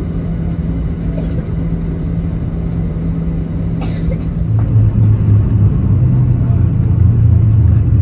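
Cabin drone of a Boeing 737-800's CFM56 engines as the airliner taxis. About halfway through the hum drops lower and grows louder.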